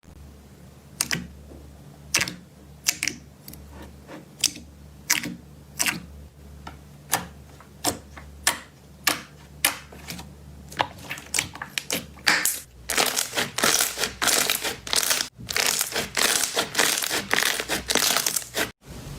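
Slime being pressed and squeezed by hand, giving off crackling pops, spaced out at first and coming thick and fast from about two-thirds of the way through.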